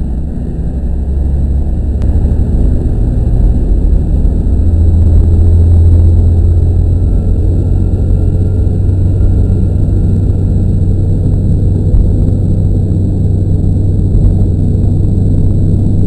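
KiHa 40 diesel railcar's engine running, heard from inside the cab: a low, steady rumble that grows louder over the first few seconds and then holds, as the railcar pulls away from the station.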